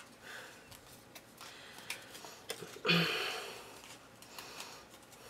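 Cardstock pieces being handled and folded along their score lines: quiet papery rustles and small clicks, with one short louder breathy rustle about three seconds in.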